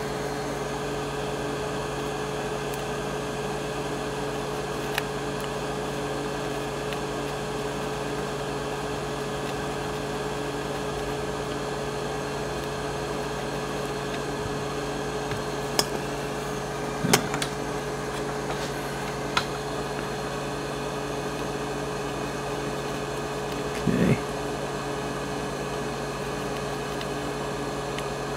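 Steady hum of an electric blower running on the workbench, with a few light clicks and knocks from tools against the circuit board, two of them louder, a little past halfway and again near the end.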